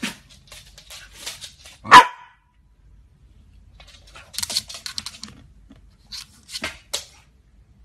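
A corgi barks once, sharply, about two seconds in, followed by scattered faint clicks and scuffles.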